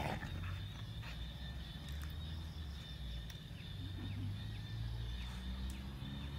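Dogs play-fighting, with low growling that comes and goes and is strongest near the end.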